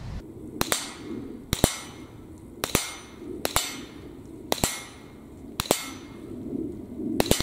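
CZ Scorpion EVO 3 S1 semi-automatic .22 LR carbine fired seven times, about one shot a second, with the clang of a steel target being hit close behind several of the shots.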